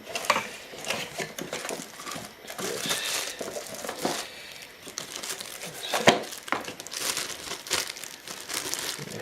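Plastic packaging crinkling and rustling as a cable is handled and unwrapped, with a few sharper crackles and clicks, the loudest about six seconds in.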